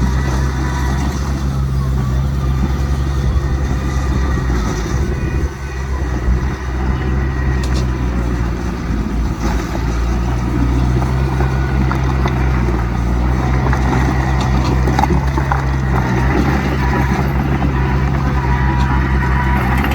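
Heavy diesel earthmoving machinery running steadily under load, with a brief dip in level about five and a half seconds in.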